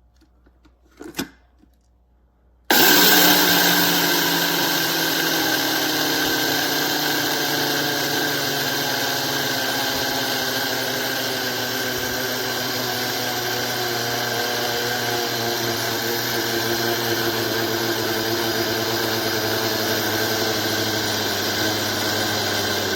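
SHARDOR electric blade coffee and spice grinder running, grinding flax seeds, switched on about three seconds in after a light tap. It starts loudest, eases slightly as it settles, and then runs steadily. The owner reads the motor labouring and slowing as the sign that the seeds are already ground to powder.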